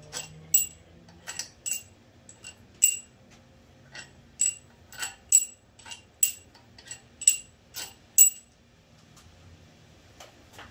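A run of about twenty light metallic clinks with a bright ringing tone, a few a second and irregularly spaced, stopping a little past eight seconds in: small steel engine parts being handled and set against one another during teardown of a 5.3 L LS V8's top end.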